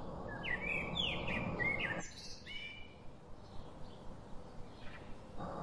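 Birds chirping over a faint background hiss, a quick run of short chirps in the first couple of seconds and fewer, fainter ones after; the background hiss drops away about two seconds in.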